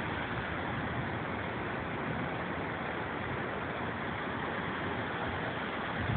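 Steady rushing ambient noise with no thunder or other distinct events.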